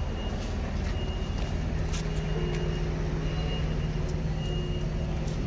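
Steady low engine rumble of an idling motor vehicle, with a constant low hum, a faint high tone that comes and goes and a few light clicks.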